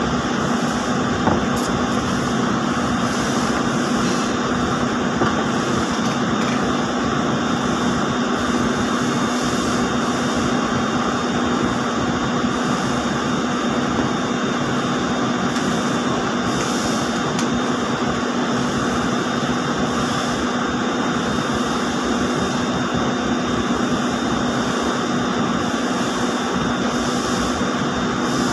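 Steady, loud running noise of textile spinning-mill machinery such as ring spinning frames: an unbroken mechanical drone with a constant low hum through it.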